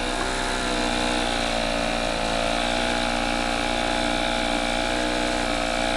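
Gas snowblower engine running steadily under load, with a slight dip in pitch about a second in. It is struggling a little as it works through very deep snow.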